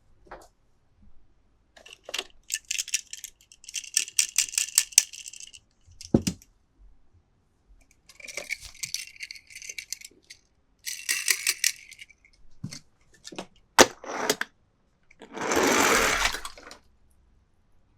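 Plastic toy packaging and toy cars being handled in an unboxing: several bursts of rapid clicking and rattling, a low knock about six seconds in, a sharp click, and a longer rustle near the end.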